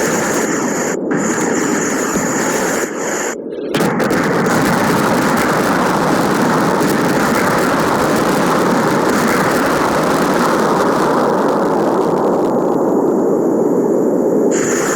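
Homemade firework burning with a loud, steady rushing hiss, briefly cutting out a few times in the first four seconds.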